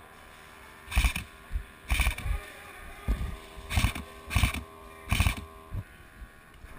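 Airsoft rifle firing in short bursts, about seven of them, roughly one a second, each a quick loud rattle.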